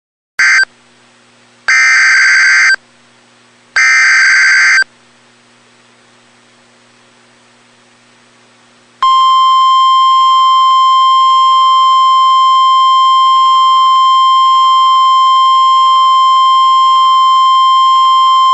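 Emergency Alert System SAME header: the tail of one burst of screeching digital data tones, then two full bursts about a second long each, separated by faint hum. About nine seconds in, the steady single 1050 Hz NOAA Weather Radio warning alarm tone begins. Together they open a tornado warning broadcast.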